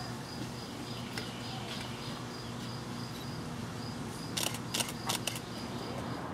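Insects chirping steadily in a fast, even high pulse over a low hum, with a quick run of sharp clicks about four seconds in.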